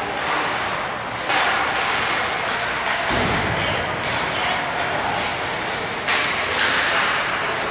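Live ice hockey play: skate blades scraping the ice and sticks hitting the puck and ice, with two sharp knocks, about a second in and about six seconds in.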